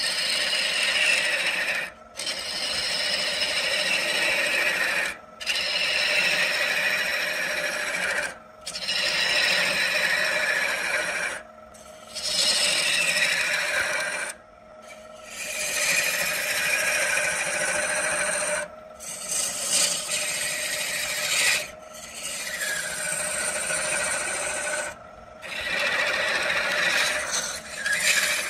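A tool working wood spinning on a lathe, rasping in repeated passes of about three seconds with brief pauses between. The lathe's steady hum carries on through the pauses.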